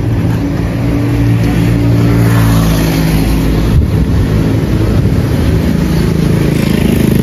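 Motor vehicle engines running on the road close by: a steady engine hum that changes pitch about halfway through and grows a little louder near the end.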